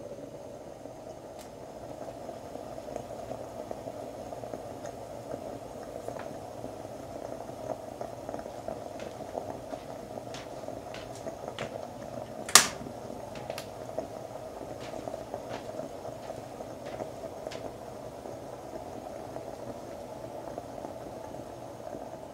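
Stovetop moka pot heating on an electric burner, making a steady boiling sound with scattered faint ticks. About twelve and a half seconds in comes one sharp, loud click as the stove's push-to-turn knob is turned.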